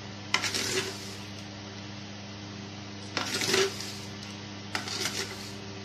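Metal spoon clinking against a stainless steel bowl in three short bursts, about half a second in, about three seconds in and about five seconds in, as sugar is added to watermelon juice. A steady low electrical hum runs underneath.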